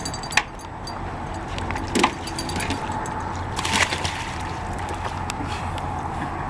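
A few sharp knocks and scuffs against the boat, over a steady low rumble of background noise.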